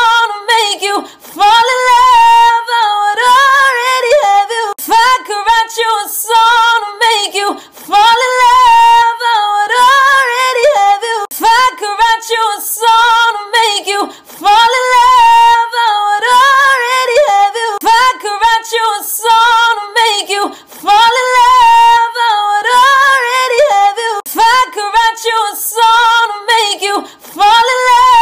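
A woman singing a cappella in a high voice, the same short phrase repeating over and over about every six and a half seconds.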